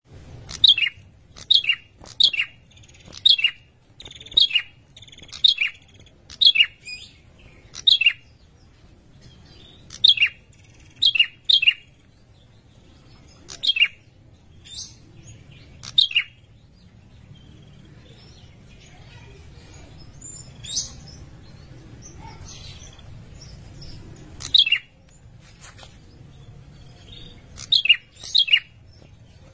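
Male ashy tailorbird repeating a short, sharp, high call, each note dropping in pitch. The notes come about once a second in a run, then fall to a few scattered ones. This is its breeding call to draw a female.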